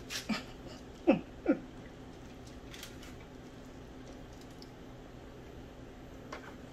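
Nylon spatula and plastic meal-prep containers clattering and scraping as meatloaf portions are lifted and set in: a few short taps and two sharper squeaky knocks about a second in, then only faint clicks.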